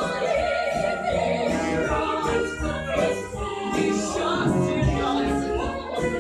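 Music: a song sung by several voices together.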